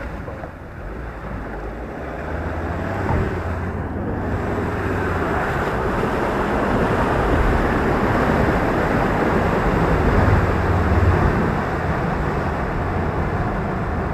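Ford Ranger ute on mud tyres driving through a muddy bog hole: its engine working under a steady rush of churned water and mud. The rush builds from about four seconds in and is loudest near the end.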